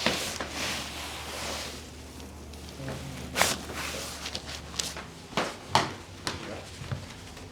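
Rustling of body and clothing on a chiropractic table, then several short sharp pops and clicks from the adjustment. The loudest come about three and a half seconds in and again near six seconds.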